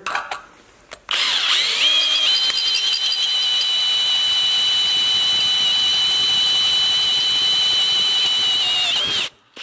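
Electric drill with a freshly bench-ground twist bit boring through a rusty metal plate. The motor starts about a second in, rises to a steady high whine while the bit cuts, then winds down and stops near the end. The bit is cutting properly now that it has been sharpened.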